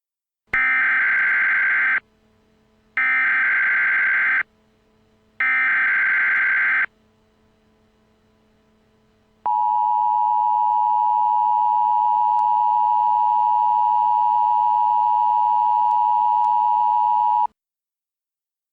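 Emergency Alert System header: three short bursts of warbling data tones, followed after a pause by the long steady alert tone held about eight seconds before cutting off.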